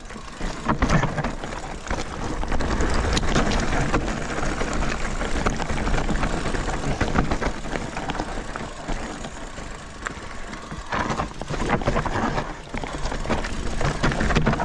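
Mountain bike rolling fast down a rocky trail: tyres crunching over stones, the bike rattling, with many sharp knocks as it hits rocks.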